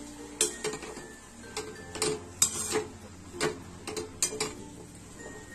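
Spatula scraping and knocking against a kadai while stirring and sautéing diced bottle gourd with spices, about ten sharp scrapes and taps at an uneven pace.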